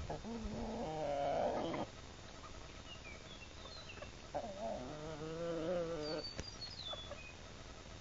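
Roosters crowing: two long crows, the first right at the start and the second about four seconds later, each lasting nearly two seconds. Short high chirps from a small bird come in between and after.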